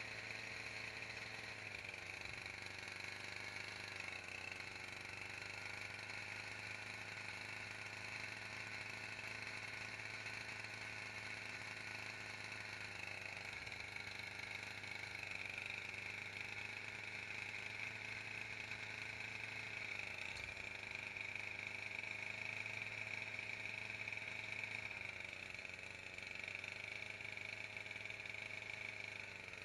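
Small robot's drive motor and gearbox running with a steady whine that hardly changes in pitch.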